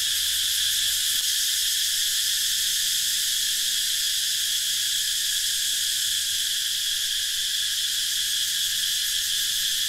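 Steady, unbroken chorus of insects, a shrill buzzing drone that holds the same level throughout.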